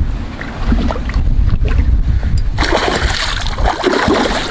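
Hooked pike thrashing at the surface and splashing water for over a second in the second half, over a steady low rumble.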